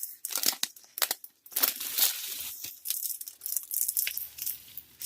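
Clear plastic film on a diamond-painting canvas crinkling and crackling in irregular bursts as it is handled, densest about two seconds in.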